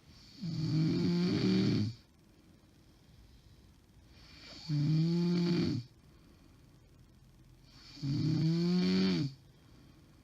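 A woman snoring heavily: three loud, rasping snores about three and a half seconds apart, each lasting about a second and a half, with quiet breathing between. The uploader takes snoring like this for a sign of sleep apnea syndrome.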